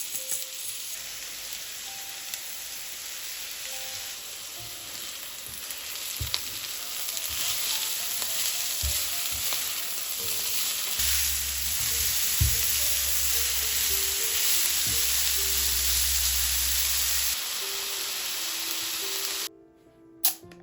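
Food sizzling as it fries in oil in a pan, growing louder, with a few light taps of a utensil in the pan and soft background music. The sizzle cuts off suddenly about a second before the end.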